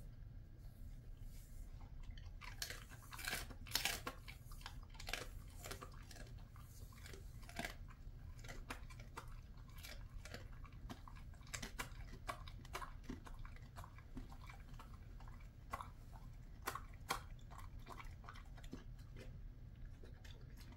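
Jindo dog chewing dried chicken feet: irregular crisp crunches and bites, densest and loudest a few seconds in, then sparser.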